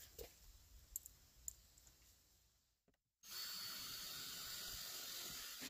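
A few faint clicks, then a cordless drill runs steadily for about two and a half seconds, driving a screw to fix a car door speaker in place, and stops suddenly.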